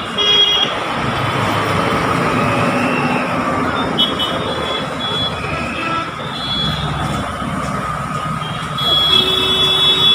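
Busy street traffic: a steady rumble and hiss of passing vehicles, with several brief high tones cutting through and a louder stretch near the end.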